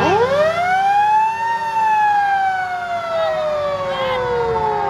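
An old fire truck's siren winds up fast to a high wail in the first second and a half, then slowly winds back down, falling in pitch.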